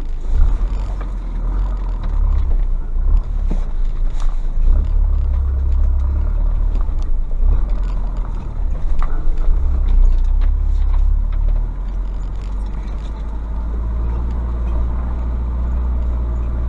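Ford Ranger's WLT turbodiesel engine running as the pickup drives slowly, with occasional short knocks and clicks over the steady low rumble.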